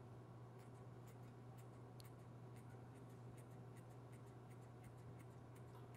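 Faint snips of kitchen shears cutting green chili peppers into a pan, small clicks about two or three a second over a steady low hum.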